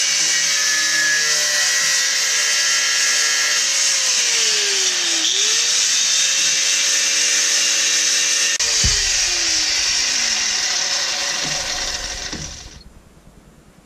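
Angle grinder cutting a square hole through the steel cab divider panel, running loudly with its motor pitch sagging twice as the disc bites into the metal. It winds down and stops near the end.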